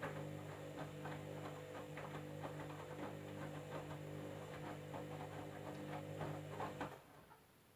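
Candy washing machine on its jeans cycle: the drum motor hums steadily while the load tumbles with irregular knocks and clicks, then the motor stops suddenly about seven seconds in, a pause in the tumbling.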